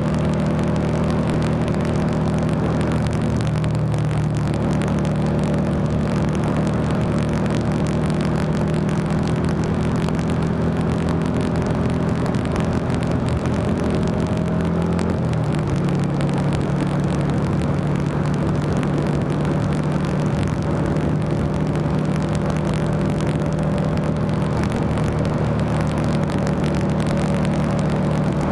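Buell XB9SX's air-cooled V-twin engine running steadily at road speed. About halfway through the engine note drops slightly, then holds steady again.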